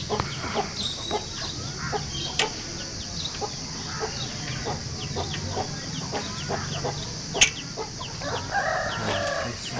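Chickens clucking in short, repeated calls, with a longer call near the end and one sharp click about seven seconds in.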